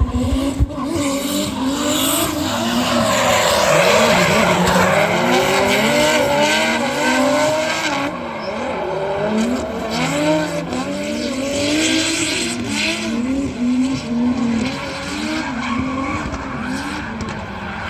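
Several racing engines revving, their pitches rising and falling as they change gear and speed.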